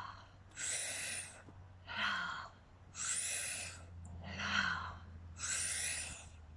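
A woman breathing deeply and audibly in a paced yoga breathing exercise: five airy breaths about a second apart, alternating stronger and softer, with a faint steady low hum underneath.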